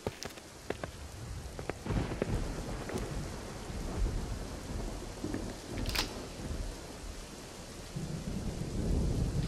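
Rain falling, with low rolls of thunder that swell several times and grow loudest near the end, and a few sharp ticks.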